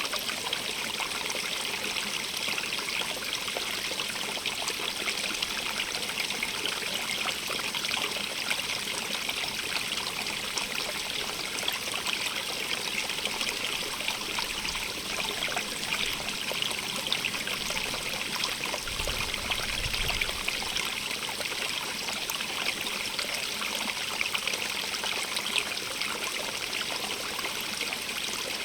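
Stream of running water, a steady splashing and trickling over stones, with a brief low rumble about two-thirds of the way through.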